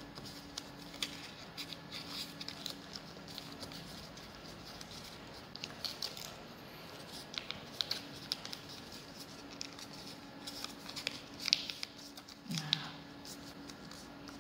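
Origami paper being folded and creased by hand: scattered crinkles and rustles of the paper, with a faint steady hum underneath.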